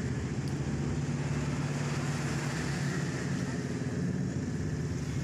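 Steady low motor drone with an even hiss over it, unchanging throughout.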